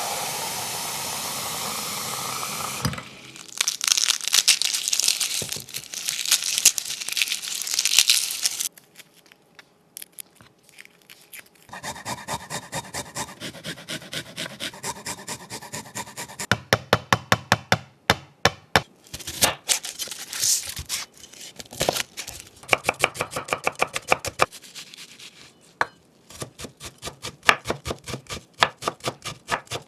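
Kitchen knife finely chopping on a cutting board in quick, even strokes, several a second, from about twelve seconds in. Before that come a few seconds of irregular rustling handling.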